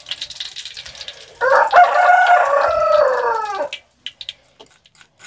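A rooster crowing once, a single long call of about two seconds starting about a second and a half in and falling in pitch at the end. Faint light clicks before and after it.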